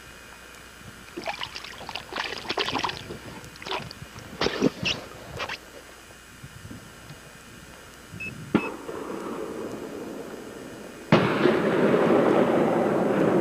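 Water splashing in irregular bursts as a muskie held in the water at the side of a boat thrashes during its release. About eleven seconds in, a loud steady mechanical drone starts suddenly.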